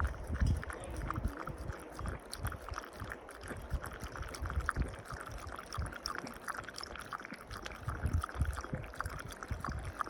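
Wind buffeting the microphone in uneven gusts, strongest about half a second in and again around eight seconds, over a run of quick small wet-sounding clicks and trickling.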